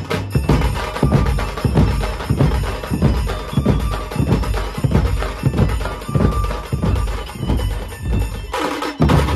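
Dhumal drum band playing: several large stick-beaten bass drums and smaller drums pounding out a fast, steady folk rhythm, about two to three heavy strokes a second under a dense clatter of sticks. Near the end the sound changes abruptly to a denser, brighter wash.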